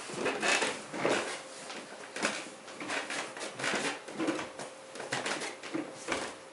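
Rustling, irregular knocks and scrapes as a person sits down and settles a Fernandes JS100 electric guitar on the lap, with a faint steady hum underneath.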